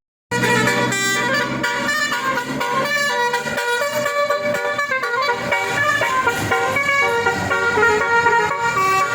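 Basuri telolet horn, a multi-tone musical vehicle horn, playing a melody of held notes that step from pitch to pitch. A low engine drone runs under it for the first few seconds.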